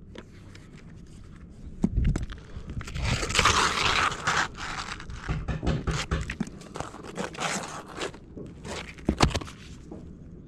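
Asphalt roof shingles scraping and crunching as they are lifted and worked by gloved hands, with a caulking gun in use and scattered sharp clicks and knocks. The sound is busiest and loudest from about two to five seconds in.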